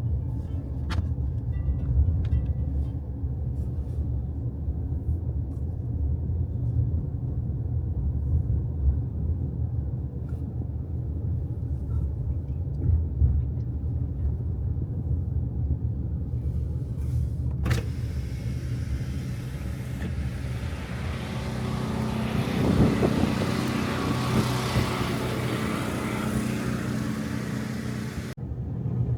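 Car driving: a steady low rumble, with a hiss that swells from about two-thirds of the way in and cuts off suddenly near the end.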